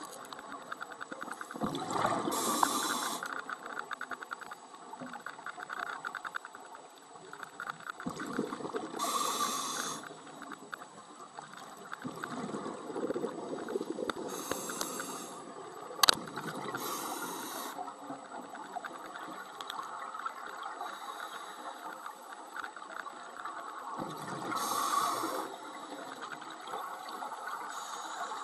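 Scuba diver breathing through a regulator underwater: about four breaths, each a hissing inhale and a rumbling rush of exhaled bubbles, several seconds apart. Faint crackling fills the gaps, with one sharp click about halfway through.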